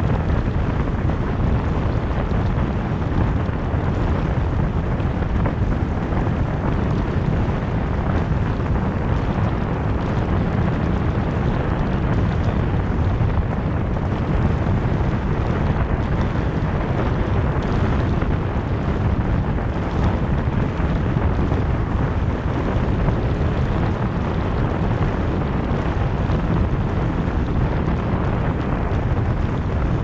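Steady low rumble of wind buffeting the microphone, mixed with road and tyre noise from a car driving along a multi-lane road.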